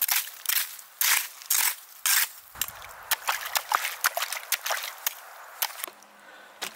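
Irregular crunching and sharp cracking of ice and snow, with a faint slosh of water.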